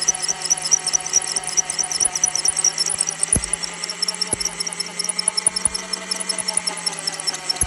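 Magnetic drill boring a hole through steel: the motor runs steadily with a squealing tone and a rapid high ticking, and there are a few low thumps around the middle.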